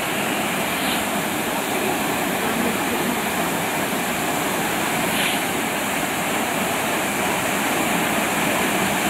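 Twin waterfall plunging into a rock pool: a steady rush of falling water.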